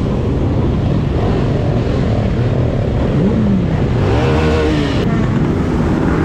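Several motorcycle engines running at low speed in a dense pack, revving up and falling back a few times, most strongly about three to four and a half seconds in.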